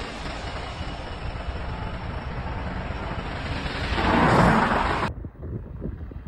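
A GBRf Class 66 diesel locomotive passing behind a trackside fence: a rushing noise that swells to its loudest about four seconds in, then cuts off abruptly about five seconds in. A quieter, uneven low rumble follows.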